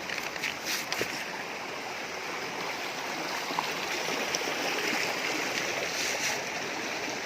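Waterfall water rushing steadily over rocks, with a few brief clicks in the first second.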